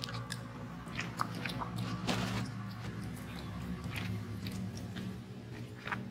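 A macaque chewing and crunching food: a scattered series of short clicks and crunches over a steady low hum.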